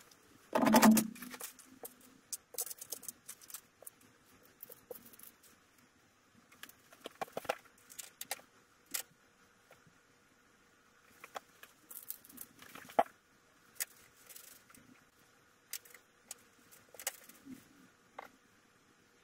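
Handling noise of someone working under a car on a garage floor: scattered small metallic clicks, knocks and rustles, with one louder thump about a second in.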